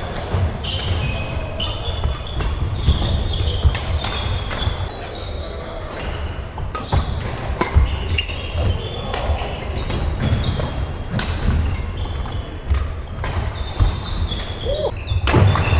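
Badminton rally in a large sports hall: sharp racket-on-shuttlecock hits and short high shoe squeaks on the court floor, some from neighbouring courts, over a steady low rumble.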